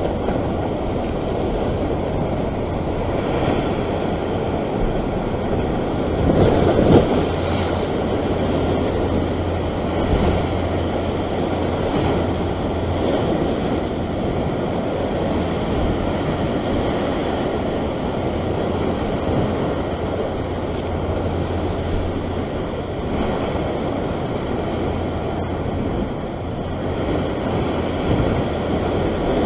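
Rough sea surf washing and breaking against rocks, a continuous rushing wash with one louder surge about six to seven seconds in, and wind rumbling on the microphone.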